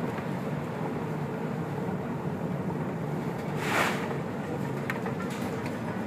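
A fishing vessel's engine drones steadily under the rush of storm seas. Nearly four seconds in, a brief loud rushing hiss comes as a wave breaks over the bow.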